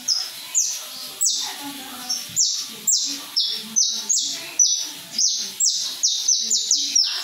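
Male saffron finch (canário-da-terra) singing in a cage: a long string of short, loud notes, each one falling sharply in pitch, about two a second and quickening near the end.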